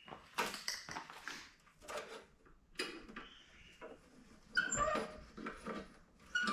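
Clicks and rattles from a mower's control cable and handle being worked by hand. From about halfway in, a dog whimpers in a few short high whines.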